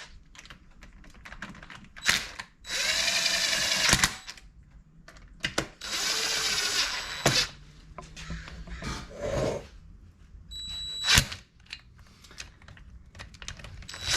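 Cordless drill-driver running in two short bursts of about a second and a half each, running in the crankcase bolts, with sharp clicks of tools and parts between the bursts.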